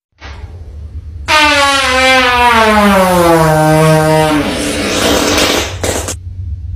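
A person farting: one long, loud, horn-like tone that slides steadily down in pitch, then breaks into a hissing rush that cuts off about six seconds in.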